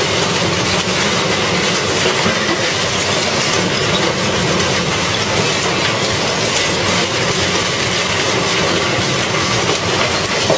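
Industrial metal shredder grinding up car parts and engines: a steady, loud, dense clatter of metal pieces being torn and crushed, without pause.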